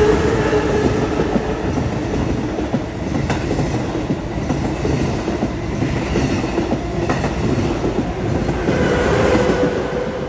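A train passing close by: a steady, loud rumble of wheels on rail, broken by a few sharp clicks.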